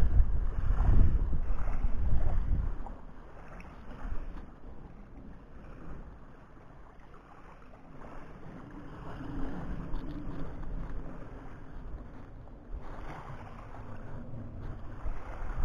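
Wind buffeting the microphone, heavy for the first two or three seconds and then easing to a lighter, steady rush.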